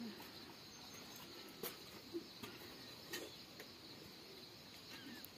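Quiet rural ambience: a faint, steady, high insect drone, with a few light clicks and small faint chirps near the end.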